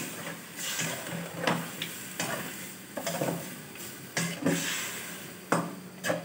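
Metal spatula scraping and stirring mutton pieces around a wok, with a steady sizzle underneath as the meat cooks in soy sauce and a little water. The scrapes come irregularly, about once a second.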